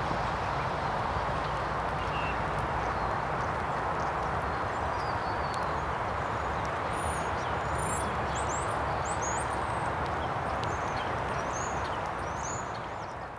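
Steady outdoor background hiss, with faint, short high-pitched bird chirps scattered through the second half. It fades out near the end.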